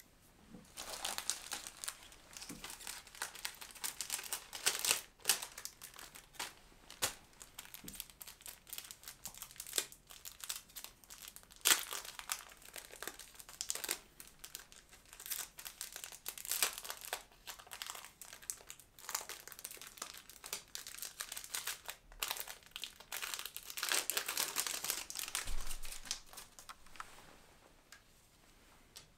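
Thin plastic film crinkling and rustling as it is handled, in short irregular bouts with light sharp ticks: the film and packaging of a glass screen protector.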